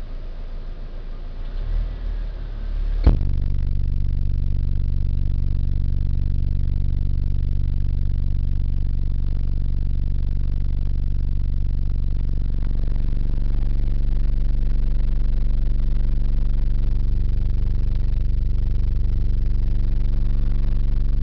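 Orion XTR Pro 12-inch subwoofer playing deep, sustained bass at high volume. It comes in loudly with a sharp click about three seconds in, and the low notes change partway through.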